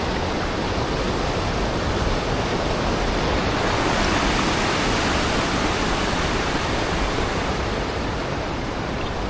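Waterfall heard close up: a steady, dense rush of falling water, swelling a little in the middle.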